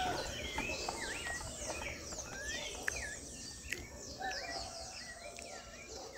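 Several birds chirping and calling over a quiet outdoor rumble, fading gradually, with a couple of sharp clicks about three and four seconds in.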